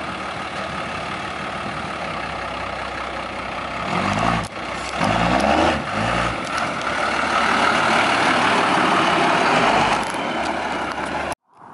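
Turbo-diesel engine of a miniature Peterbilt-style pickup truck running as it drives up and passes close by. The engine surges a few times midway, and the engine and tyre noise grow louder as it goes past. The sound cuts off suddenly near the end.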